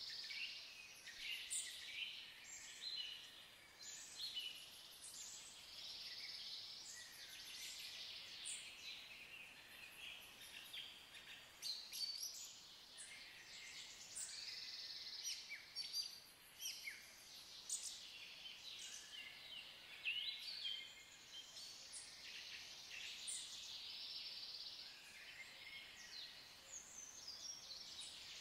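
Woodland birdsong: several songbirds singing and calling at once, a dense run of high chirps and trills that goes on without a break.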